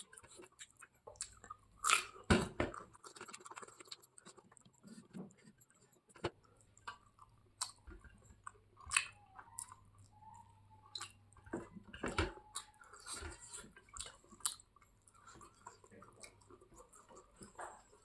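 A person chewing and biting food close to the microphone: irregular wet chewing with short crunches and clicks, the loudest about two seconds in and again about twelve seconds in.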